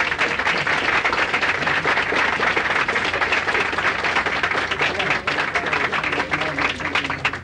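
Audience applauding, many hands clapping at once, holding steady and thinning out near the end.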